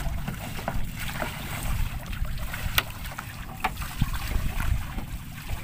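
Wind buffeting the microphone over open sea around a wooden outrigger boat, a rough low rumble with hiss, broken by a few sharp knocks, the clearest a little before halfway.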